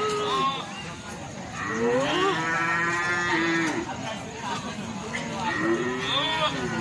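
Goats bleating: several long, wavering calls one after another, the longest a couple of seconds long, with other calls overlapping.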